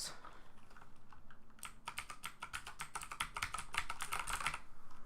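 Fast typing on a Corsair K70 MK.2 mechanical keyboard with clicky Cherry MX Blue switches, a rapid run of sharp key clicks. The typing starts about a second and a half in and breaks off briefly near the end.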